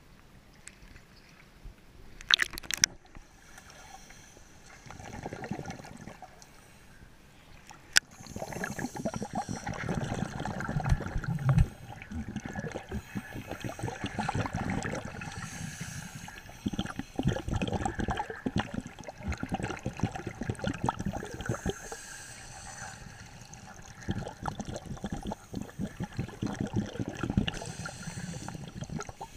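Underwater bubbling and gurgling of scuba divers' exhaled air, coming in stretches of a few seconds. The first several seconds are quieter, with a couple of sharp knocks.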